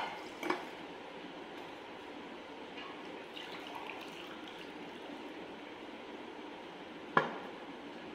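Water poured faintly from a drinking glass into a glass jar of jamun fruit, then from a jug into the glass. Sharp clinks of glass come at the start, about half a second in, and again about seven seconds in.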